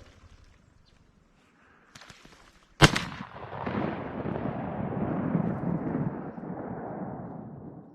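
A single shotgun blast, followed by several seconds of loud, rushing noise that cuts off suddenly at the end.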